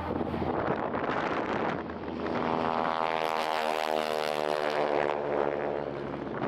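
North American SNJ (Navy T-6 Texan) trainer's radial engine and propeller at take-off power, climbing out just after lift-off. The sound swells to its loudest mid-way as the plane passes, then drops in pitch as it goes by.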